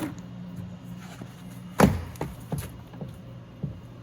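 A sharp knock a little under two seconds in, followed by several lighter clicks and taps, as plastic door parts are handled and fitted into place, over a steady low hum.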